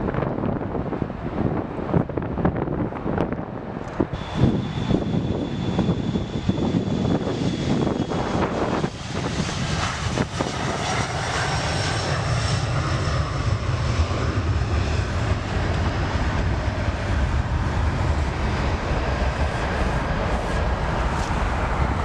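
Jet airliner engines heard through gusty wind buffeting the microphone. About ten seconds in, the gusts give way to a steadier low rumble with a high, slightly falling whine, from a Boeing 737-400 as it passes.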